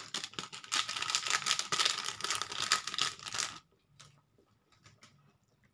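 Plastic seasoning sachet being torn open and crinkled in the hands as the powder is shaken out, a dense crackle that stops abruptly about three and a half seconds in, leaving a few faint ticks.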